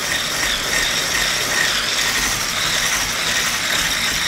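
Electric hand mixer running at a steady whir with a faint high whine, its beaters whisking egg whites and sugar into a glossy meringue in a glass bowl.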